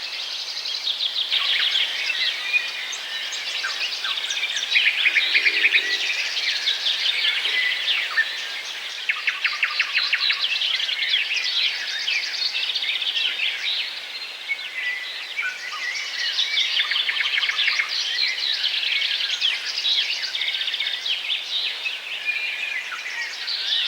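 A flock of small songbirds chirping and twittering continuously, many rapid overlapping calls and short trills.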